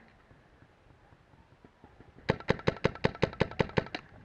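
RAP4 468 paintball marker firing a rapid string of about a dozen sharp shots, roughly seven a second, starting a little over halfway through and stopping abruptly.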